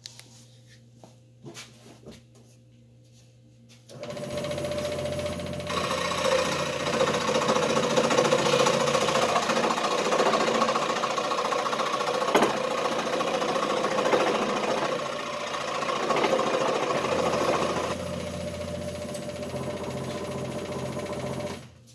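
Dremel scroll saw running, its reciprocating blade buzzing steadily as it cuts slowly through a thick glued-up pallet-wood wheel blank. The saw starts about four seconds in, after a few light clicks, and stops just before the end.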